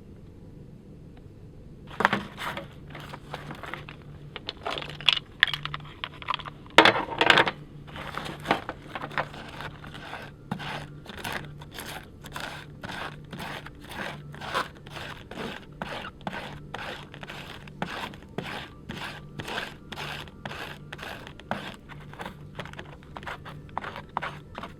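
Footsteps crunching in snow. A few louder, uneven crunches come in the first several seconds, then they settle into a steady walking rhythm of about two steps a second.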